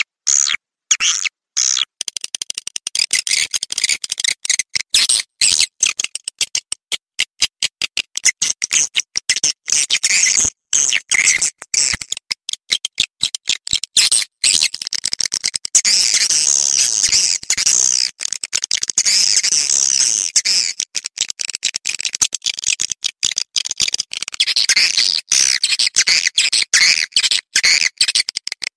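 Swiftlet lure call: a recording of edible-nest swiftlet twittering, played to draw swiftlets into a nesting house. It is a fast run of high chirps and clicks broken by many short gaps, densest about halfway through.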